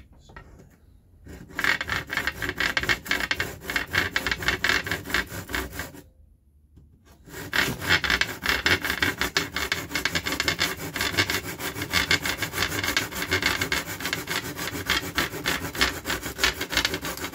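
Handsaw cutting through a glued-in wooden dowel in rapid back-and-forth strokes, stopping for about a second some six seconds in, then sawing on.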